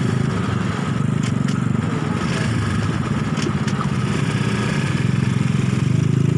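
Quad bike (ATV) engine running steadily at low revs, with no revving.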